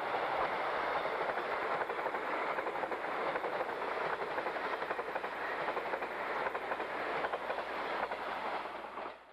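Electric passenger train passing close by, a steady rumble and rush of running noise with the wheels clattering over rail joints.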